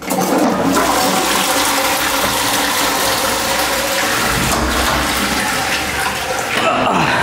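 Toilet flushing: a loud, even rush of water that starts abruptly, runs steadily for about six seconds and tails off near the end.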